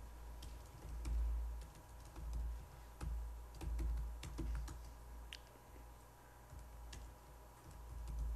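Laptop keyboard typing: irregular, faint key clicks as shell commands are entered, over a low dull rumble.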